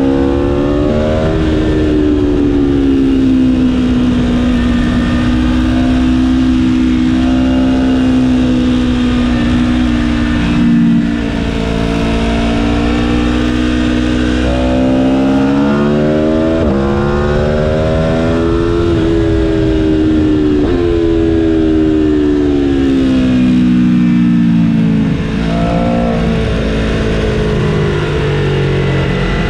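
Aprilia Tuono V4 1100's V4 engine heard onboard at track speed, its pitch rising and falling repeatedly as the throttle is opened and rolled off through corners, with a brief lift about eleven seconds in. Wind rushes over the microphone throughout.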